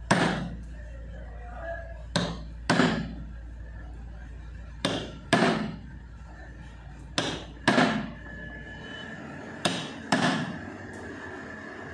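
Hammer blows driving a new oil seal into a tractor engine's metal seal housing plate. There are nine sharp strikes, mostly in pairs about half a second apart, each ringing briefly.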